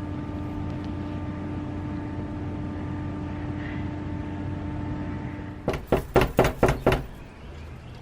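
A steady hum carrying a held tone, which stops about five and a half seconds in. It is followed by a quick run of about six loud, sharp sounds within a second.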